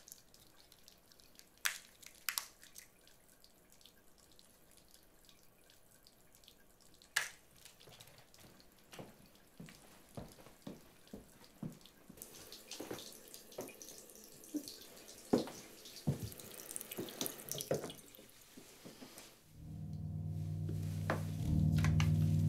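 Scattered small clinks and knocks, then water running from a tap into a sink for several seconds with more small knocks. Near the end, low sustained music comes in.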